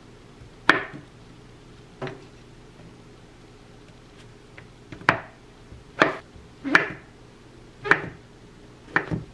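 Chef's knife slicing king oyster mushroom on a bamboo cutting board. About eight sharp knocks of the blade striking the board, unevenly spaced about a second apart, with two close together near the end.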